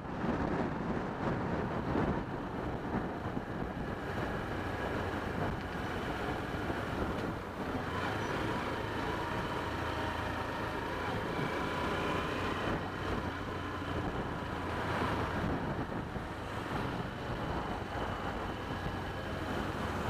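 Motorcycle engine running at low revs while riding slowly in town traffic, with wind noise on the bike-mounted camera's microphone.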